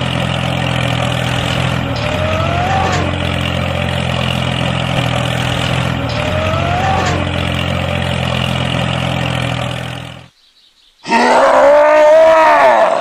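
Tractor engine sound effect running steadily, with a short rising whine about every four seconds; it cuts off about ten seconds in. After a second of silence comes a loud, growling roar near the end.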